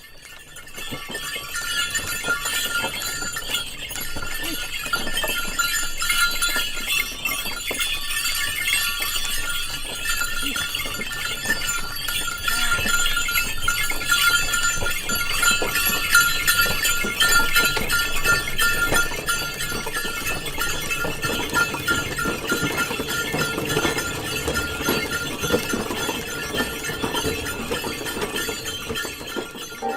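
Bullock cart going by, the bells on the bullocks ringing steadily over a dense clatter of hooves and cart, fading in over the first couple of seconds.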